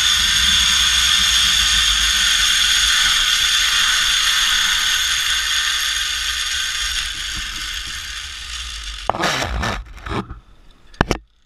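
Zip-line trolley pulley running along the steel cable with a steady high whine, slowly fading as the rider slows toward the landing. About nine seconds in comes a burst of clattering knocks as the trolley arrives at the end of the line, then a single sharp clack near the end.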